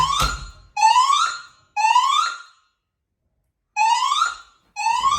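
Fire alarm voice-evacuation system sounding its alert tone between announcements: rising whoop sweeps about a second apart, three in a row, a pause, then three more. This is the temporal-3 evacuation pattern.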